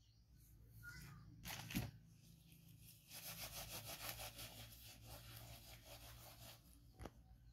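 Faint rustling and rasping of a disposable diaper being handled and unfolded, with a short crackle a little under two seconds in and a longer run of fine, rapid rasping from about three seconds to six and a half, then a single click near the end.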